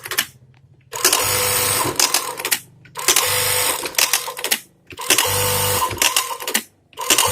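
Juki DDL-9000B-MS industrial lockstitch sewing machine stitching in short runs of about a second and a half each, stopping and starting four times. Each run ends with a few sharp clicks.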